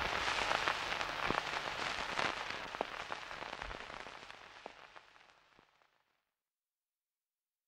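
Crackling noise made of a steady hiss dotted with sharp clicks, fading out gradually until it stops about six seconds in.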